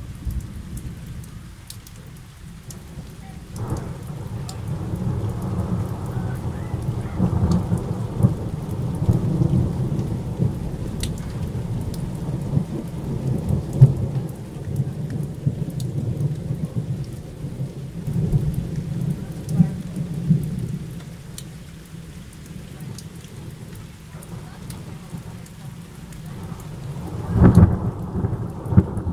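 Thunder: a long rolling rumble that builds about three seconds in, carries on for some fifteen seconds and fades, then a second, sharper clap near the end. Rain falls throughout.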